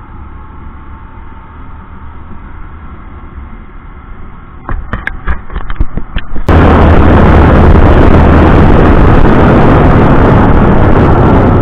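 Riding noise on a Bajaj Discover motorcycle: a steady low engine and road rumble, then several sharp pops about five seconds in. A second and a half later it jumps suddenly to a loud rush of wind on the microphone over the engine's low drone.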